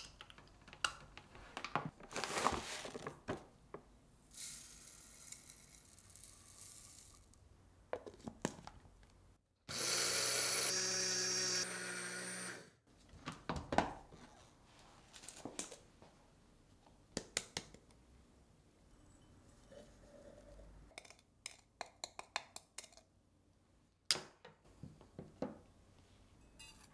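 Small electric countertop blender running for about three seconds, about ten seconds in, grinding raw cane sugar to powder. Before and after come clicks and knocks from handling the jar and plug, and a few seconds of rustling hiss early on.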